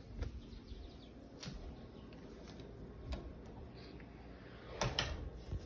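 A few light, scattered knocks and clicks from footsteps and a handheld phone being carried, with a louder double knock near the end.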